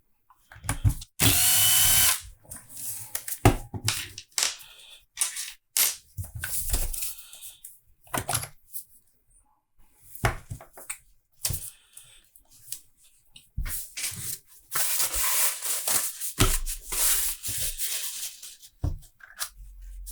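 A power screwdriver run in short bursts to back out the screws holding the front of a cordless impact wrench's gearbox, the loudest burst about a second in and a longer, weaker run near the end, with clicks and clatter of screws and small metal parts being handled in between.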